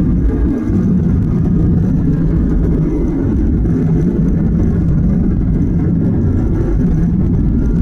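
Steady low cabin drone of a Boeing 737-800 airliner, from its engines and the airflow, heard from a passenger seat.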